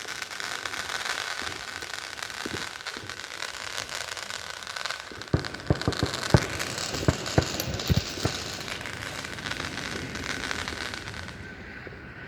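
Consumer fireworks going off: a continuous hissing, crackling spray with a steady whistling tone in it, broken in the middle by a quick run of sharp pops, then cutting off about a second before the end.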